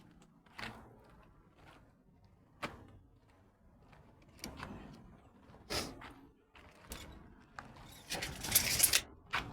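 Scattered knocks and clicks of materials and tools being handled, with a louder scraping rush of about a second near the end.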